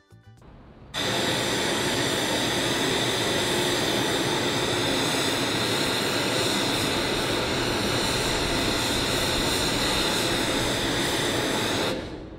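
Steady hiss-like test noise played through a single TOA CS-760 music horn speaker, heard from 50 metres away. It starts abruptly about a second in and cuts off near the end. It is loud, reading about 76 to 83 dB SPL on a sound level meter at that distance.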